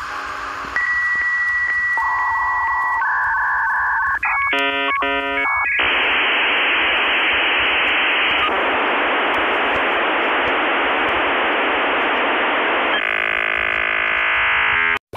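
Electronic tones and static: steady beeps, a rapid run of switching tones about four seconds in, then a long hiss of static, and a burst of banded tones that cuts off suddenly near the end.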